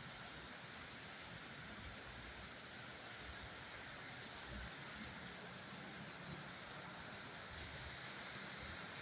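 Steady rain, a faint even hiss with uneven low rumbling underneath.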